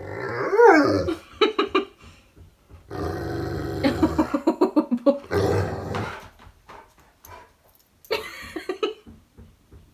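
Golden retriever "talking" to its owner in a string of vocalizations: a call that rises and falls about half a second in, a few quick short sounds, then a long drawn-out call around three to four seconds in and shorter ones after it.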